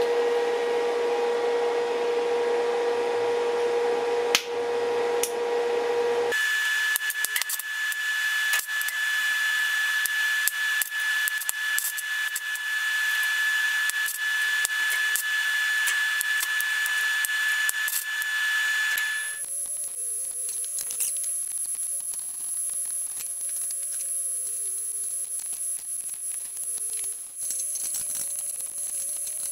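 Stick (MMA) electrode welding arc crackling and sizzling while tacking galvanized steel angle brackets onto sheet steel. The sound changes abruptly about six and about nineteen seconds in.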